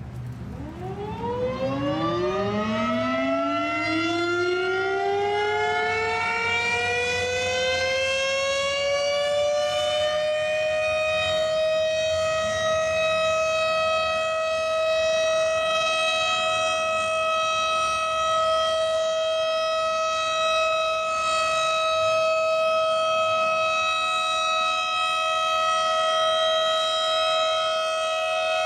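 Federal Signal STH-10 electromechanical dual-tone warning siren starting up: its two tones wind up together from a low growl over about ten seconds, then hold a steady, loud two-note chord.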